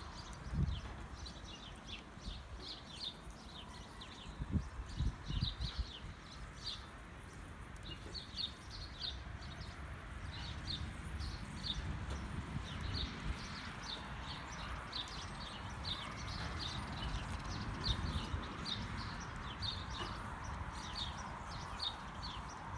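Small birds chirping in short, high, repeated notes over a steady outdoor hiss, with a few low thumps about half a second in and again around five seconds in.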